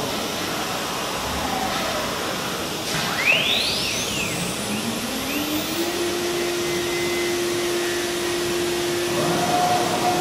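CNC router spindle spinning up: a whine rises in pitch over about two seconds a few seconds in, then holds steady, over a steady rush of air noise from the machine. A second, higher steady tone joins near the end.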